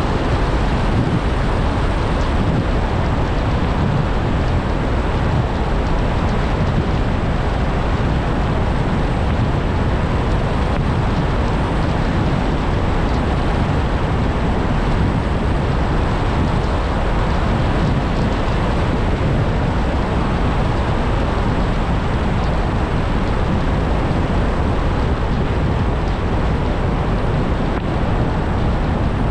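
Steady road and wind noise of a car driving, an even rush heaviest in the low end, with no change in level.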